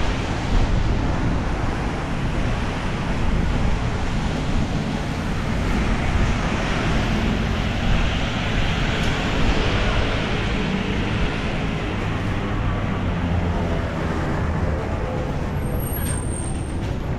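Road traffic on a rain-wet street: a steady rumble of engines with the hiss of tyres on the wet road, swelling as a vehicle passes about midway through.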